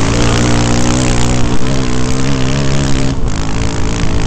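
Off-road dirt-bike engine held at high revs under hard acceleration, heard from the rider's helmet with wind rushing over the microphone. The steady high engine note breaks off briefly about three seconds in.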